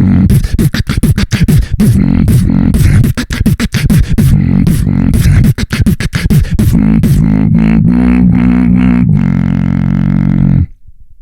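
Human beatboxing: rapid mouth-made drum strikes and hi-hat snaps over a deep bass. It then gives way to a held, buzzing bass tone that cuts off suddenly near the end.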